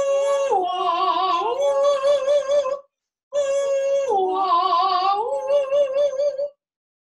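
A voice singing a vocal exercise in two phrases. Each starts on a held high note, drops lower with a wavering pitch, then climbs back up to the high note.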